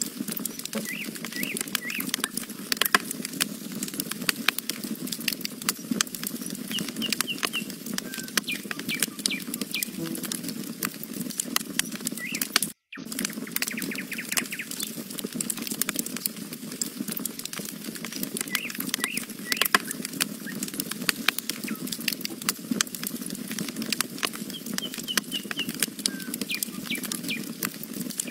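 Campfire of burning logs crackling, with frequent sharp pops and a steady low rustle of flame. Faint bird chirps come in now and then, and the sound cuts out for an instant about halfway through.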